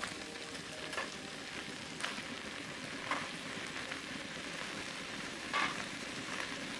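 A stir-fry sizzling steadily in a pan, with a spatula clicking and scraping against the pan about five times as it is stirred.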